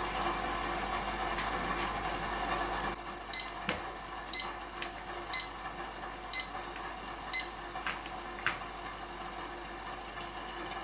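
A steady hiss from the pot of boiling water on the gas burner cuts off about three seconds in. An electronic kitchen timer then beeps five times, about once a second, with a few light clinks of the mesh strainer in the pot.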